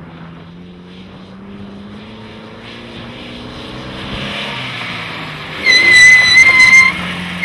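Off-road rally pickup's engine running and growing louder as the truck approaches. Near the end comes a loud, shrill, steady high tone, once for about a second and then again briefly.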